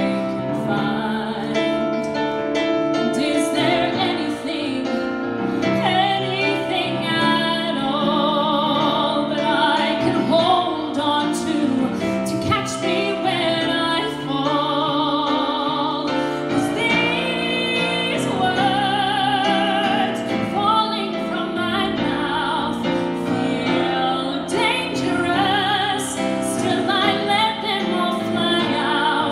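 A female singer performs a musical-theatre ballad with piano accompaniment, holding long notes with a wide vibrato several times.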